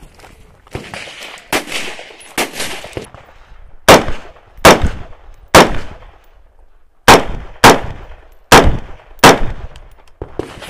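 Seven rapid shots from an AR-style semi-automatic carbine, each with a short echo: a string of three, a pause of about a second and a half, then four more. Before the shooting there are a few seconds of quieter knocks.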